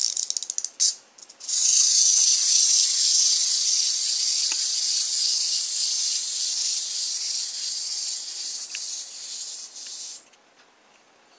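Clockwork wind-up motor of a tiger model kit: a quick run of ratcheting clicks as it is wound, then the spring motor whirring steadily as the tiger walks. The whirr fades a little and cuts off about ten seconds in as the spring runs down.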